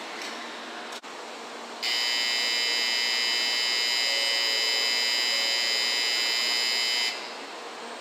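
Shinkansen platform departure-signal buzzer sounding one steady, loud buzz for about five seconds. It starts about two seconds in and cuts off abruptly. It is the departure-instruction signal before the N700 Nozomi's doors close.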